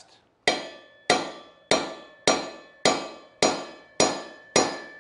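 Hammer striking the driver handle of a bearing remover eight times, a little under two blows a second, to drive a frozen sealed wheel bearing out of a motorcycle wheel hub. Each blow is a sharp metallic hit with a short ringing tail.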